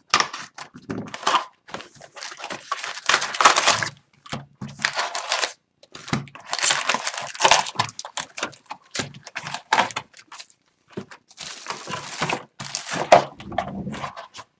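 Plastic shrink wrap being torn and crinkled off a sealed hockey card hobby box: a run of irregular crackling rips with short pauses between them.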